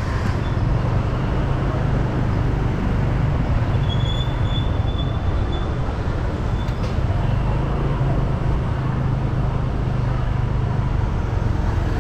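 A vehicle on the move: a steady low rumble of engine and road noise, with street traffic around it. A brief high squeak comes about four seconds in.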